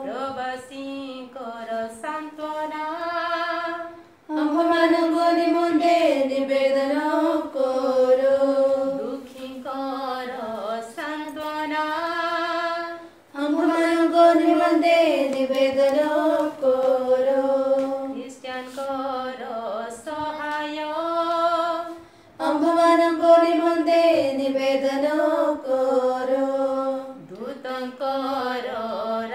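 Voices singing a devotional litany to the Virgin Mary in Odia, in a chant-like melody. Phrases of a few seconds come in alternating louder and softer lines, with short breaks about four, thirteen and twenty-two seconds in.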